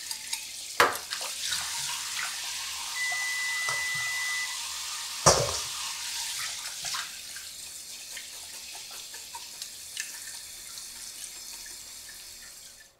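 Kitchen tap running into a sink while the blanched head and bones of a striped beakfish are rinsed and scraped clean of slime, blood and scales, with scattered small knocks and clicks. One sharp knock about five seconds in.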